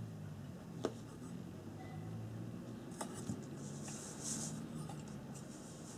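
Fingers tying a fabric lantern mantle's string onto a metal burner tube: faint scratchy rubbing and rustling, with a sharp click just under a second in and another about three seconds in, over a low steady hum.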